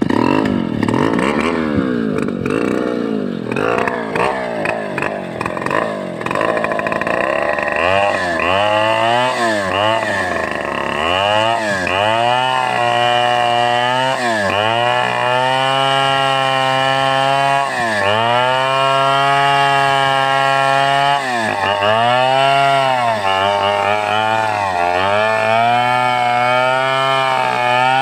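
Two-stroke chainsaw ripping a sengon (albizia) log lengthwise. For the first several seconds the engine runs unevenly. From about eight seconds in it holds high revs, its pitch sagging and recovering again and again as the chain bites into the wood under load.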